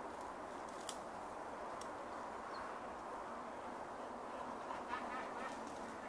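Great cormorants calling at a crowded tree roost: a steady din of croaking, with a few louder calls near the end.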